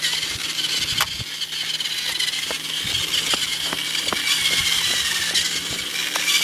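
Small toy RC truck's electric motor and gears running with a steady high whine that wavers a little in pitch as it drives, with scattered light clicks from the wheels on the pavement.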